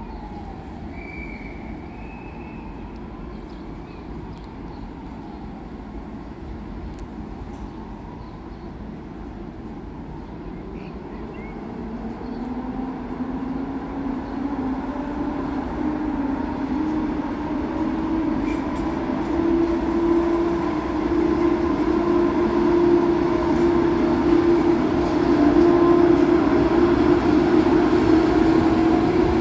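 Electric locomotive of a PKP Intercity train running: a humming whine that climbs slightly in pitch and grows steadily louder through the second half, over a low rumble.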